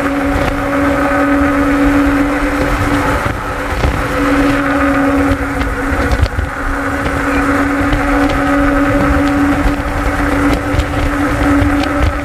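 Motorcycle engine running steadily at cruising speed with a constant humming pitch, easing briefly a little after three seconds in, over a low wind rumble on the microphone.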